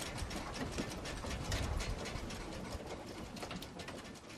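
Ore-processing machinery at a uranium mine plant running, a rapid, dense clattering and rattling over a low rumble.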